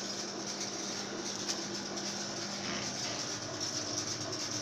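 Steady hum and hiss of running machinery with a low, even tone, typical of a laser cutter's air pump and exhaust fan.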